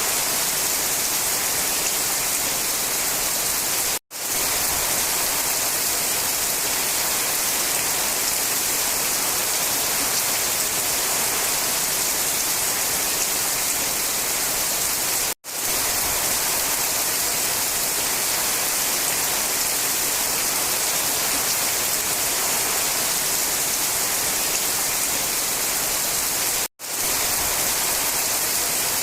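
Steady rain, an even hiss with no single drops standing out. It cuts out to silence for a split second three times, at even spacing about eleven seconds apart.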